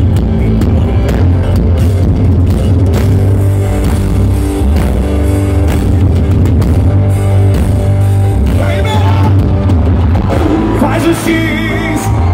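Loud live concert music through a stage sound system, with a heavy steady bass. A wavering melody line comes in over it near the end.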